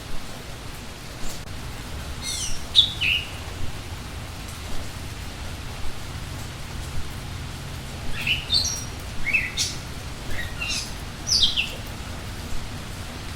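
Steady rain with scattered drop ticks, and small songbirds calling over it in quick, downward-sliding chirps: one short run about two seconds in and a longer run from about eight seconds.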